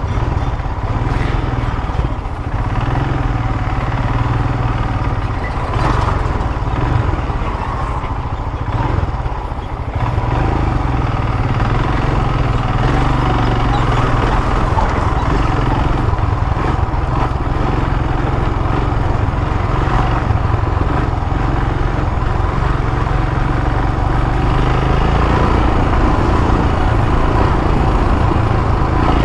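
Royal Enfield motorcycle running steadily while being ridden, heard through a helmet-mounted lavalier mic with low wind rumble from air entering the open helmet.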